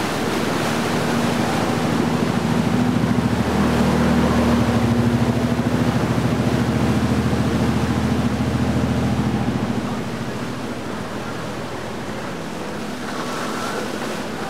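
A motorboat's engine running steadily as the boat passes, growing louder to a peak midway and fading after about ten seconds, over the rushing water of the canal current and wake.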